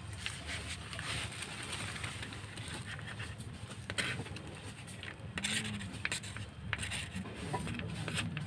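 Cats crunching dry kibble, with scattered small clicks, while a plastic spoon scrapes and pushes the kibble across the floor. A steady low hum runs underneath.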